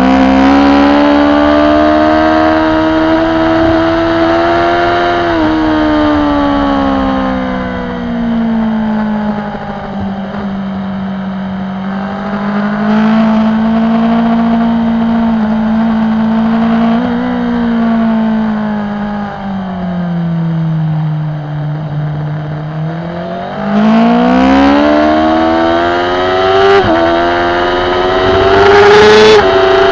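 BMW S1000RR inline-four engine at race pace, heard from on board: the revs rise, ease back through corners and hold steady, then climb hard in third gear about three-quarters of the way through, with an upshift just at the end.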